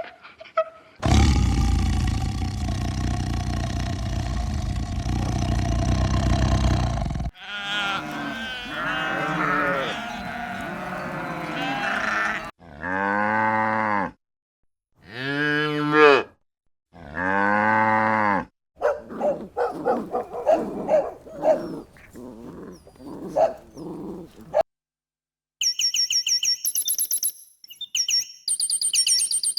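Farm-animal calls in separate clips. A long rough call comes first. Then three cow moos of about a second and a half each, rising and then falling in pitch. Then a run of short, quick calls, and near the end high, rapid chirps.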